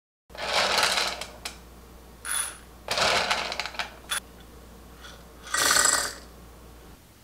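Several short bursts of rattling clatter with sharp clicks in between, as dried soybeans and the plastic and glass parts of a Joyoung soymilk maker are handled.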